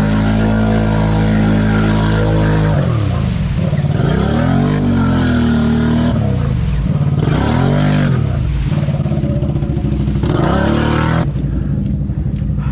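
ATV engine held at high revs, then revved up and down in several surges of the throttle, settling to a lower steady note near the end.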